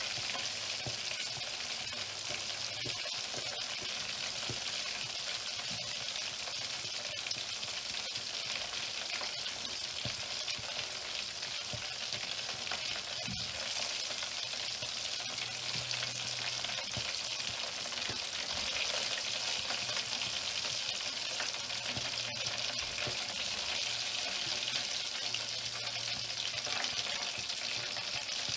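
Breaded chicken strips deep-frying in hot oil, a steady, dense sizzle and crackle.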